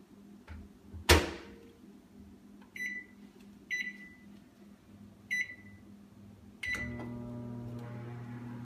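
Sharp microwave drawer slid shut with a loud knock, then four keypad beeps as it is set, and the microwave starts running with a steady hum for the last two seconds: microwave popcorn beginning to cook.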